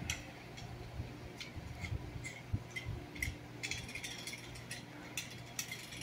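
Faint, irregular light clicks and ticks, a dozen or so, over a low steady hum.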